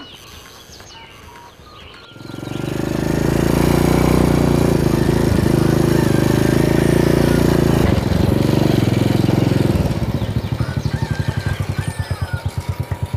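Small underbone motorcycle engine running steadily, then settling into a fast, even pulsing idle about ten seconds in.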